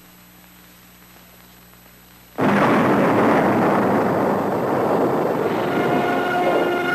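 A faint steady hum, then about two and a half seconds in the blast of a 1.2-kiloton nuclear device detonated on the ground surface comes in suddenly and continues as a loud, sustained rumble of noise. Steady music tones begin to come in over it near the end.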